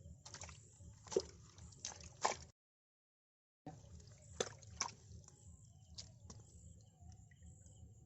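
Quiet splashing and dripping of water, a handful of short sudden splashes over a low steady background, broken by about a second of dead silence near the middle.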